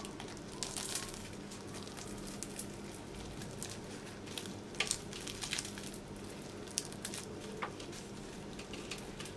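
Crisp oven-baked yufka börek crackling as two hands tear a square of it open: scattered sharp crackles and snaps of the flaky layers.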